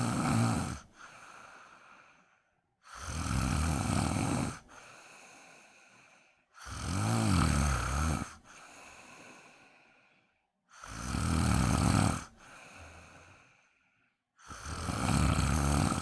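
A sleeping person snoring loudly in a steady rhythm: a loud snore on the breath in about every four seconds, each followed by a quieter breath out.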